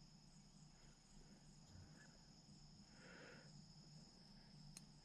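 Near silence: room tone with a faint steady high-pitched tone and a soft rustle about three seconds in.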